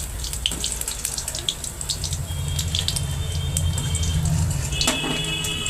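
Potato-and-gram-flour fritters deep-frying in hot oil: a steady sizzle with many small crackles and pops.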